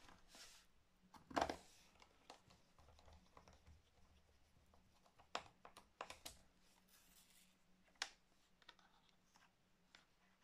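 Scattered light clicks and taps from a laptop being handled during reassembly, the loudest about one and a half seconds in, over near silence with a faint steady hum.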